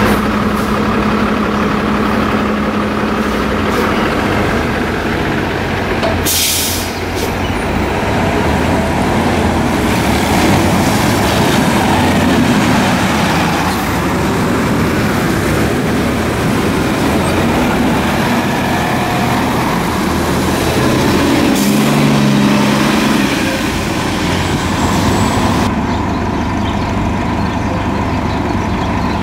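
Diesel transit buses running at a stop: steady engine drone that shifts in pitch as the buses idle and pull away, with a short hiss about six seconds in. The sound changes near the end at a cut to another bus idling at the curb.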